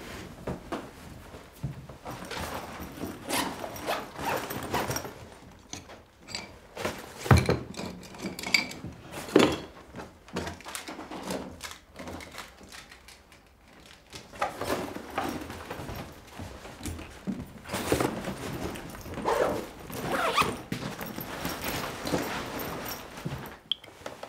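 Clothing rustling and small objects being handled, picked up and set down on a table, with irregular rustles and a few sharp knocks, two of them the loudest sounds, about a third of the way through.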